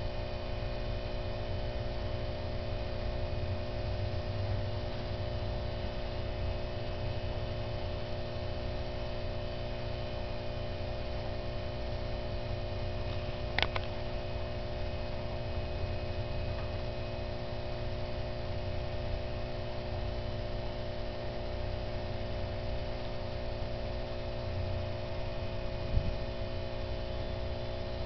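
Steady electrical hum made of several fixed tones over a low rumble, with one sharp click about halfway through and a brief knock near the end.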